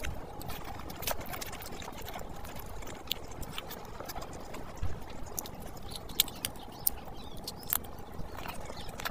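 Wet chewing and lip smacks, with rice and curry gravy squishing as it is mixed by hand: a quick, irregular run of small clicks and smacks.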